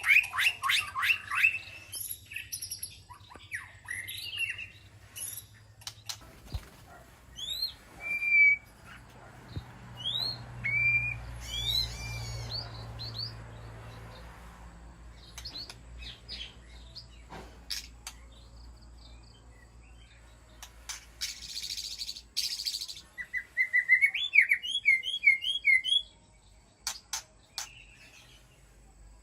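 White-rumped shama singing a varied string of clear whistled notes, rising slurs and quick runs of repeated notes, in short phrases with pauses between them.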